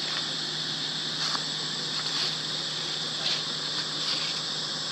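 Steady high-pitched drone of insects in the trees, with a low even hum underneath and a few faint clicks.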